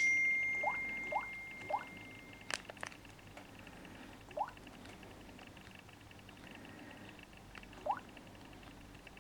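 A single high ding that rings out and fades over about two and a half seconds, followed by two sharp clicks; faint short rising chirps come now and then.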